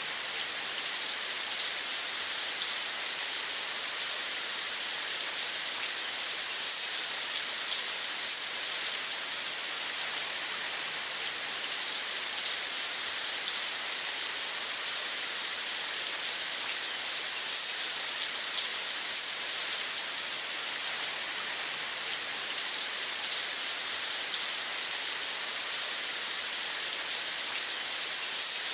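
Steady rainfall: an even, unbroken hiss of falling drops with fine patter.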